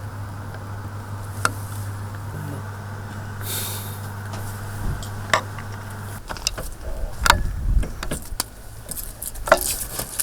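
A car idling with a steady low hum that cuts off abruptly about six seconds in, followed by a string of sharp clicks and knocks with some low rumbling.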